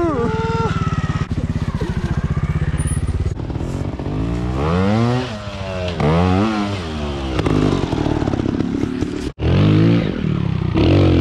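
Trials motorcycle engines revving under load on a steep rocky climb, the pitch rising and falling twice in the middle, with a brief break in the sound near the end.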